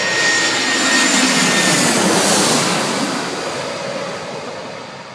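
Twin-engine jet airliner passing low overhead on landing approach: a high whine and jet noise swell to their loudest about two seconds in, drop in pitch as the plane passes, then fade away.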